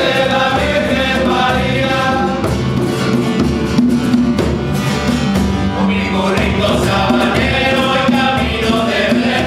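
Group of men singing a Spanish Christmas carol together, accompanied by a djembe, a cajón and a guitar, with a steady drum beat under the voices.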